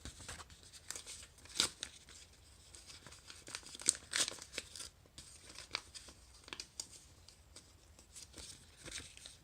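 Paper envelope being torn open by hand: a run of irregular rips with paper rustling and crinkling between them, the loudest rips about a second and a half in and again around four seconds in.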